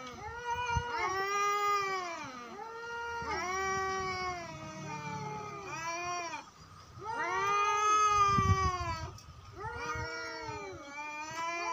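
Domestic cat yowling in long, drawn-out wails one after another, each rising then falling in pitch: the threat call of a cat squaring up to another cat for a fight.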